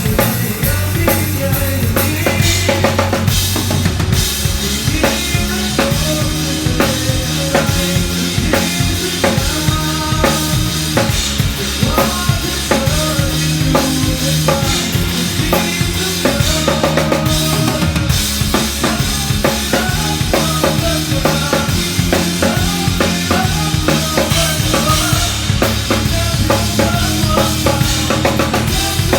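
Drum kit played continuously, dense strokes throughout, over a music track with a bass line and melody notes.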